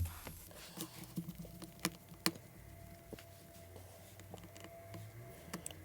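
Scattered light clicks and taps as a watch movement is handled and set into a movement holder on the workbench. The sharpest clicks come about two seconds in and again near the end, over a faint low hum.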